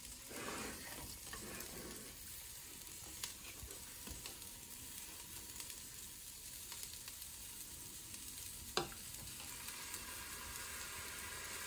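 Faint steady sizzling from a steel pot on a gas burner, with a few light clicks and, about nine seconds in, a sharper knock as the ladle touches the pot.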